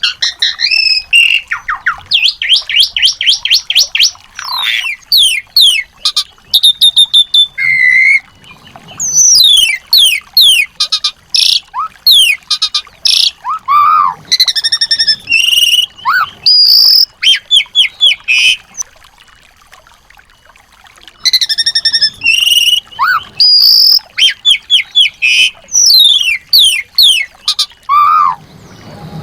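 Small songbirds calling: fast bursts of high chirps, rattling trills and sweeping notes repeated in rapid series, with a pause of about two seconds midway. It is a 'masteran' track of small-bird song, played to tutor white-rumped shamas and rouse them into song.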